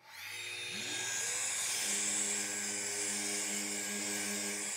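Festool random orbital sander with 220-grit paper starting up, its whine rising as the motor comes up to speed in the first second, then running steadily with a hum and a high hiss. It is sanding a water-based finish down to bare wood on a rosewood board.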